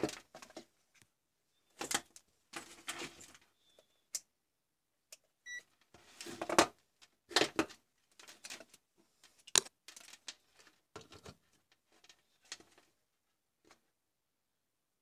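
Handling noise on a workbench: a thin plastic cable rustling and dragging, with clicks and knocks from a plastic plug-in charger and multimeter test leads being picked up and moved. A short electronic beep sounds about five and a half seconds in.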